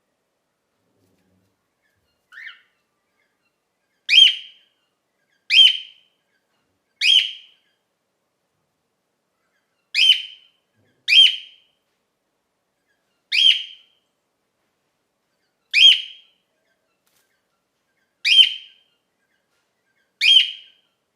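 Cockatiel giving its flock call: a faint short call, then nine loud, shrill contact calls, each under half a second, repeated every one to three seconds.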